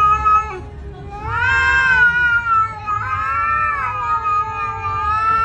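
Cats caterwauling: long, drawn-out yowls that swell and sag in pitch, with a short break about half a second in. This is the threat yowling of cats squaring off to fight.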